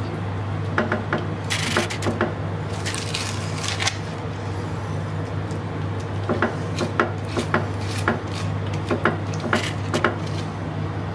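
Wooden spatula spreading thick yogurt over chickpeas and potatoes in a glass bowl: soft squishing and scraping with scattered light clicks of the spatula against the glass. A steady low hum runs underneath.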